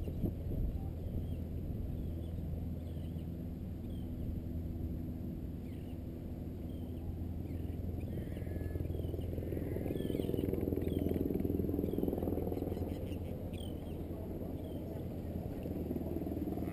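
Water sloshing and lapping around a float tube as the angler kicks his swim fins, muffled and low, with a swell of sloshing about two-thirds of the way through. Faint short high chirps recur throughout.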